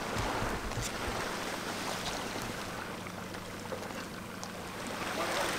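Shoreline ambience: wind on the microphone and small waves at the water's edge, over a steady low hum from a boat's engine.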